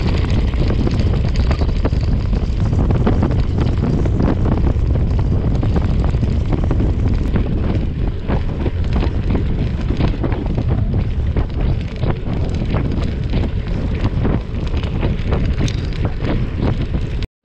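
Wind buffeting the microphone of an onboard camera on a gravel bike riding a rough dirt road, over the rumble of the tyres on the dirt and many small rattling clicks from the bumps.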